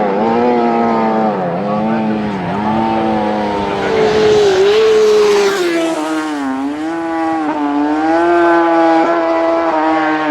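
Road-racing motorcycle engines running hard at high revs, the pitch dipping and climbing back several times.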